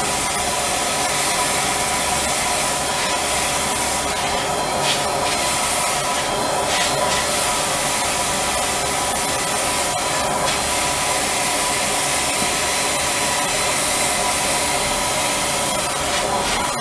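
Spray-tan HVLP turbine machine running steadily, blowing air through its hose and spray gun with a constant hiss and motor whine as tanning solution is sprayed onto skin.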